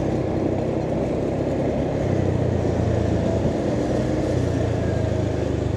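Motor vehicle engine running steadily at an even speed, with road noise.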